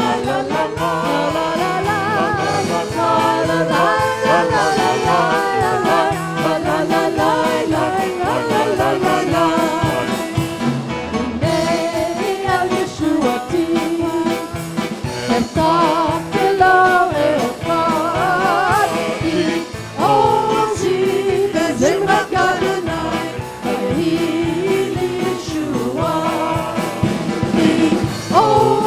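Live worship singing: voices singing a melody together over instrumental accompaniment.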